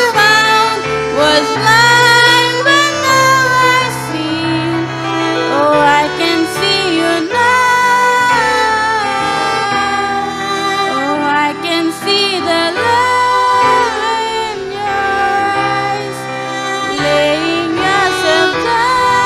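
A woman singing a song into a microphone, accompanied by piano and violin.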